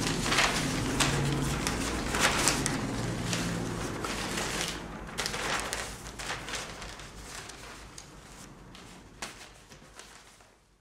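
Rustling and crackling of a large sheet of paper being lifted and handled, with scattered short clicks; the sound fades out toward the end.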